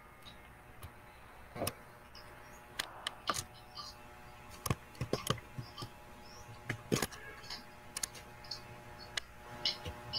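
Computer mouse clicking at irregular intervals, some clicks coming in quick pairs, with perhaps a key tap among them.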